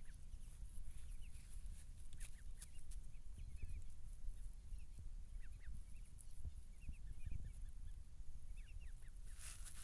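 Muscovy ducklings peeping as they forage: many short, high peeps scattered through, over a steady low rumble. A brief hiss comes near the end.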